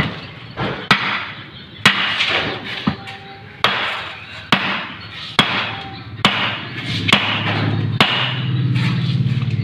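Hammer striking metal about once a second, around ten blows, each with a short ringing after it, as work goes on over a truck transmission. A low steady hum comes in near the end.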